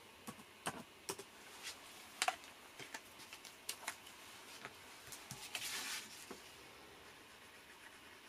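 Paper and craft supplies handled on a cutting mat: scattered light clicks and taps, with a brief rustle of paper about five and a half seconds in.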